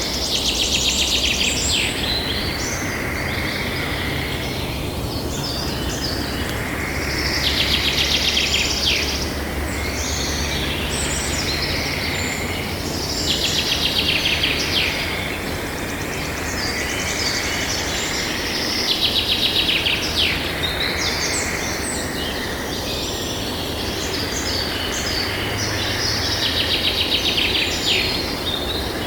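Night nature ambience: a rapid, pulsed trilling call repeats about every six seconds, each lasting around two seconds, over a steady bed of high chirring and low hum.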